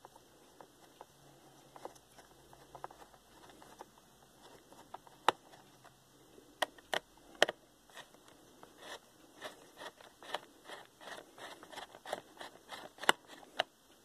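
Screwdriver working the screws of a laptop's plastic bottom panel: scattered light clicks and scrapes of the metal tip in the screw heads, a few sharper clicks among them, coming more often in the second half.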